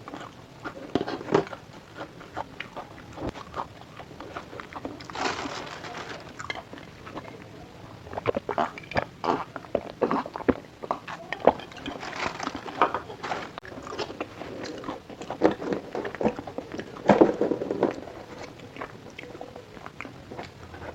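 A person biting and chewing crunchy fried food, with irregular crunches that come thickest from about eight to eighteen seconds in.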